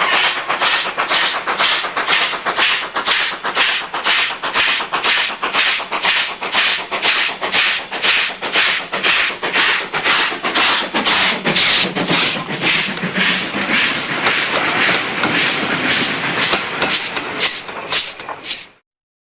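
Steam locomotive working hard, its exhaust beating sharply about twice a second and getting louder as it comes close and passes. The sound cuts off abruptly near the end.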